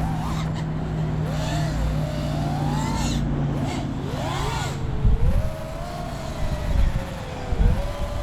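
Nazgul Evoque F5x V2 FPV quadcopter's motors whining, the pitch swooping up and down in arcs as the throttle is worked, then holding a wavering tone. From about five seconds in, gusts of wind thump on the microphone.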